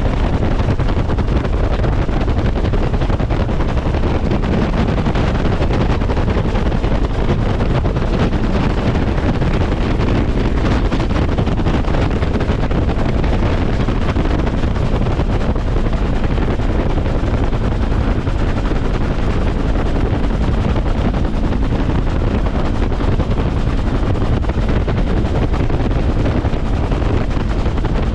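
Bell UH-1 Huey helicopter in flight, heard from on board: the loud, steady noise of its turbine engine and two-bladed main rotor, with wind buffeting the microphone.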